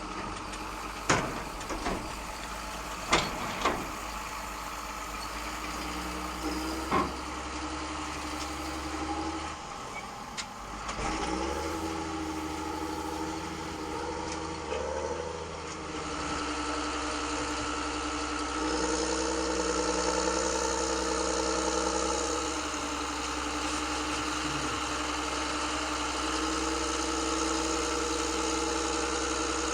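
Radio-controlled excavator and dump truck models working: steady whine and hum of their motors and gearboxes, changing pitch a few times, with several sharp clacks in the first seven seconds.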